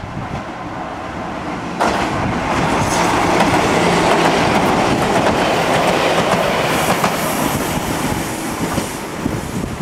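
Ichibata Electric Railway 3000-series electric train passing close by, wheels clattering along the rails. It turns suddenly loud about two seconds in and eases off toward the end.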